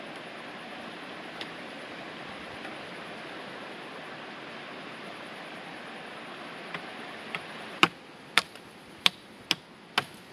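Dry branches snapping: a run of sharp cracks about twice a second in the last few seconds, over a steady background hiss.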